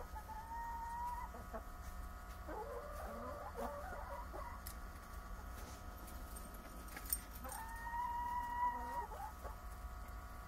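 Chickens clucking inside a coop: a short call about half a second in, a burst of clucking around three seconds in, and a longer drawn-out call near the end.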